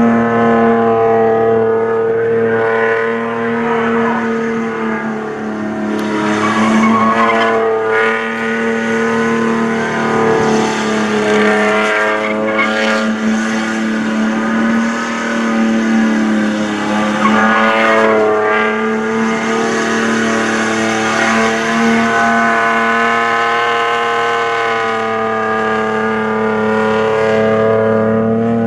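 A ute's engine held at high, fairly steady revs through a burnout, its rear tyres spinning and squealing on the pad. The revs dip and climb again a few times.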